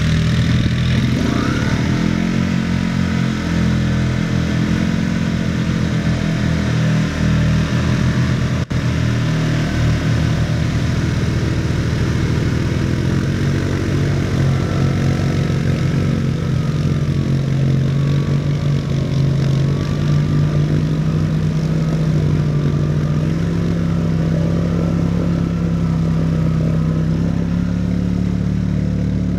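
ATV engines running under load while wading through deep water, the engine note rising and falling with the throttle and then holding higher and steadier in the second half, with water churning around the machines.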